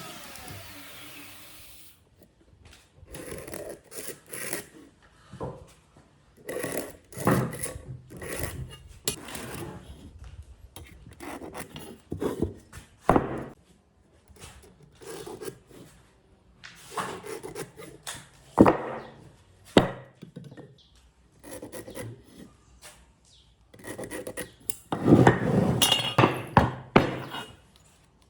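A power tool spins down and fades in the first second or two. Then come irregular rubbing and scraping strokes of hand work on wood, loudest in a dense run near the end.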